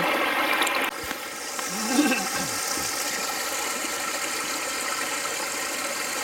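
Shallow stream water running steadily, with hands working in it. A short voice sound about two seconds in.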